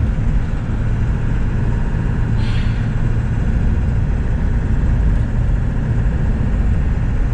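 Steady engine and road rumble inside a moving truck's cabin while driving, with a brief hiss about two and a half seconds in.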